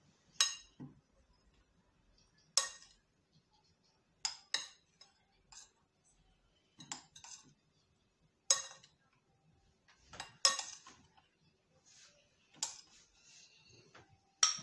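A spoon clinking and scraping against bowls while ground almonds are scooped out and measured: about a dozen sharp, briefly ringing clinks at irregular intervals.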